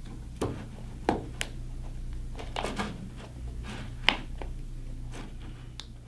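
Hands stretching a rubber joystick boot over its retaining flange and handling the joystick housing: scattered soft clicks, taps and rubbing, about a dozen in all, over a low steady hum.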